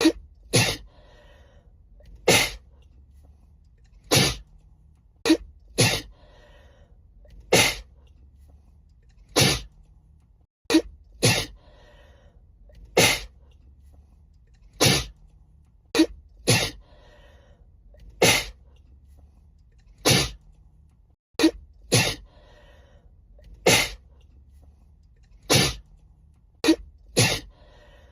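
A woman sneezing over and over in a sneezing fit: about twenty sharp sneezes, mostly one every second or two, some coming in quick pairs.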